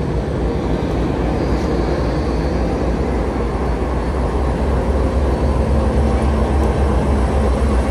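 Union Pacific diesel-electric locomotive idling at a standstill: a steady, deep rumble that grows a little stronger partway through.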